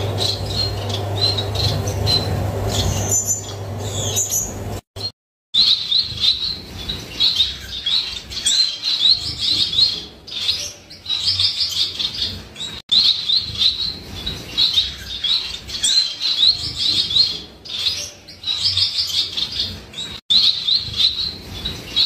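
Male Gouldian finch singing: repeated short phrases of quick, high chirping notes, coming every second or two after a brief break about five seconds in. Before the break, fainter chirps sit over a steady low hum.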